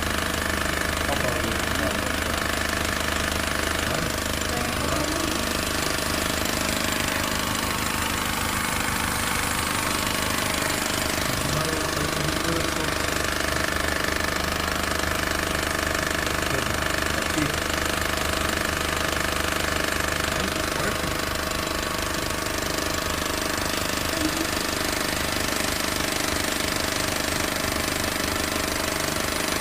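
Honda New Civic engine running steadily with a fast, even ticking rattle throughout, the abnormal engine noise the owner is recording.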